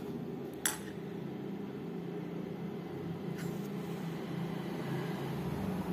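A steady low hum, with a single sharp click about half a second in and a fainter click about three and a half seconds in.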